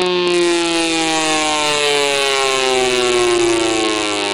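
Federal Signal Thunderbolt 1000A siren's chopper and motor assembly, run outside its horn housing, sounding a siren tone whose pitch slowly and steadily falls as the rotor winds down.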